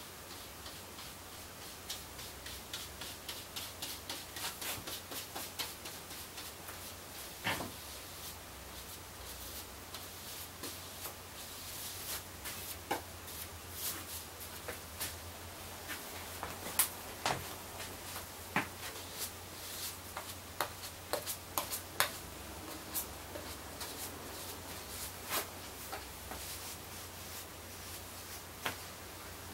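Chip brush spreading wet epoxy on a surfboard: light, quick ticks from the bristles and handle for a few seconds, then scattered clicks and taps as strokes are laid on and feathered, over a low steady hum.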